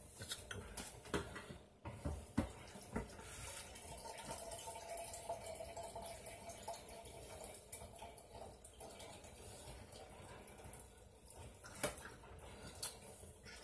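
Liquid running steadily into a container for several seconds. Around it are a few sharp knocks and clatters of handling at the start and again near the end.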